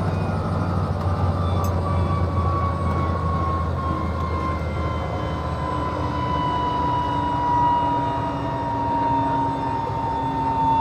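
Helicopter engine and rotor running down after landing: a steady whine that slowly falls in pitch, with the low rotor hum weakening about halfway through.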